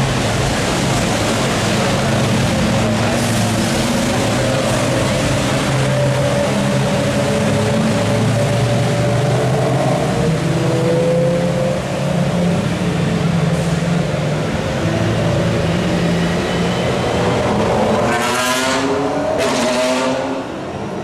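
GT3 race car engines running at low, steady revs as the cars pass slowly under the safety car, over a steady hiss from the wet track.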